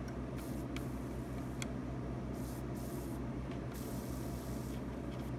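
Solder flux sizzling under a hot soldering iron tip, in short hissing spurts as the solder melts on a motherboard coil's pad. Now and then there is a small tick, over a steady low hum.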